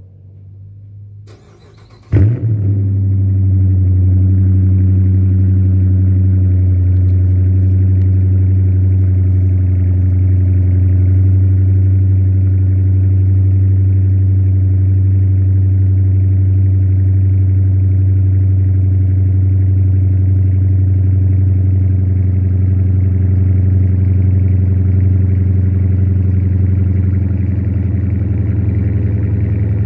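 2016 Dodge Challenger R/T's 5.7-litre Hemi V8 starting through steel-wool-packed Porter mid-mufflers, with the rear resonators deleted. The starter cranks briefly, the engine catches with a loud burst about two seconds in, then settles into a steady idle. It is a semi-cold start after about six hours sitting.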